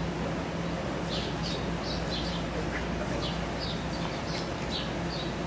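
Small birds chirping, short high notes sliding downward and repeating a few times a second, over a steady low hum.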